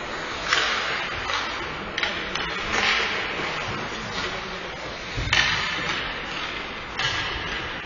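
Ice hockey play in a rink: several sudden scrapes of skate blades on the ice, each fading within a second, with a dull thud about five seconds in.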